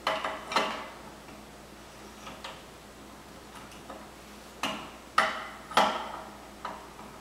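Pedal wrench clinking against a bicycle pedal and crank as the left pedal is worked onto its thread in short turns: about seven sharp metallic clinks, uneven in spacing, the loudest about five to six seconds in.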